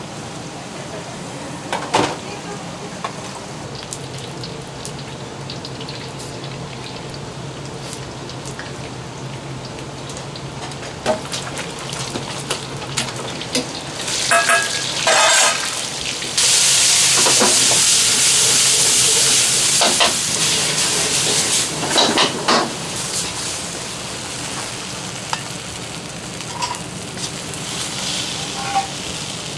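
Wok cooking on a restaurant burner: metal clanks against the wok a few times, then food hits the hot wok with a sudden loud sizzle lasting about five seconds. More clanks follow and the sizzle fades, with a steady low hum underneath.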